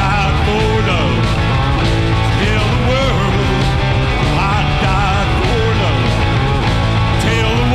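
Three-piece rock band playing loud and steady in an instrumental stretch: drums and bass under a lead line of bending, wavering notes, most likely electric guitar.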